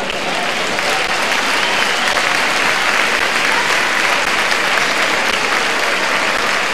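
Audience applauding, swelling over the first second or so and then holding steady.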